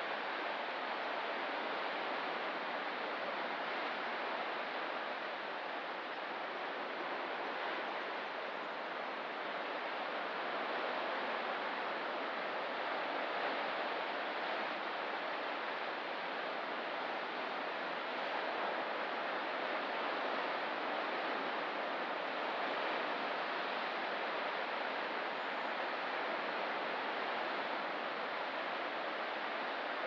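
Steady wash of ocean surf, an even hiss with no single breaking wave standing out.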